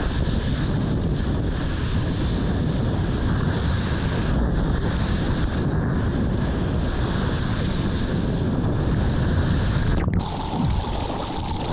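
Wind buffeting an action camera's microphone, over the rush of breaking surf and water, while riding a wave. The sound is a steady, loud noise that changes abruptly about ten seconds in.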